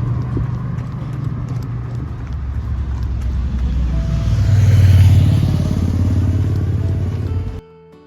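A motor vehicle passing close by, its engine and tyre noise building to a peak about five seconds in and easing off, then cut off suddenly near the end.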